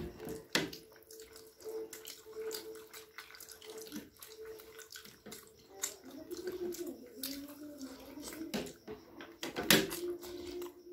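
Close-up eating noises: wet slurping of spicy momo soup from a spoon, with smacking, chewing and scattered small clicks of mouth and spoon.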